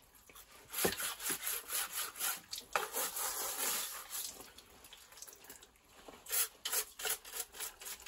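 Bottle brush scrubbing the wet fins of a condenser tumble dryer's heat exchanger in quick back-and-forth strokes, pausing about halfway and starting again near the end.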